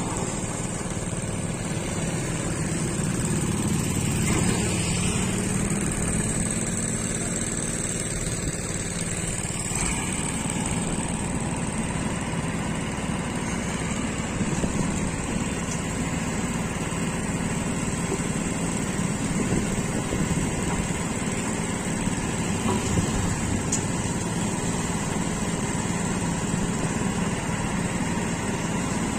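Iseki combine harvester's diesel engine running steadily as the machine is driven off a truck, starting down the steel loading ramps near the end.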